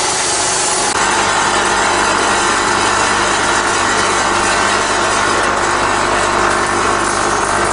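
Packing-line machinery running: the motor-driven cleated incline conveyor and its drive, a steady, even mechanical noise with several constant tones.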